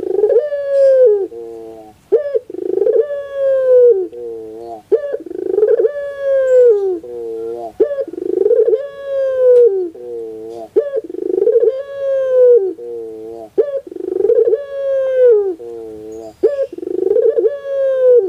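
Puter pelung (domestic ringneck dove) cooing over and over, one long coo phrase every two to three seconds. Each coo starts sharply, holds a long note that slowly slides down, and ends in a short quick wavering run.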